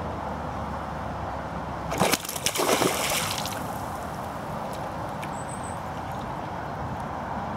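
A small hooked pike thrashing at the water's surface: a quick burst of splashes about two seconds in, lasting a second or so, over a steady background hiss.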